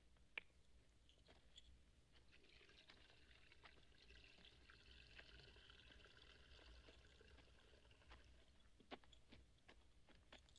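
Near silence: a faint high hiss that swells in the middle, with a few soft crunching footsteps on sand and gravel.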